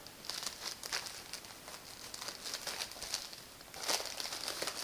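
Clear plastic packaging bags crinkling as they are handled and opened, in irregular bursts of rustling that get busier near the end.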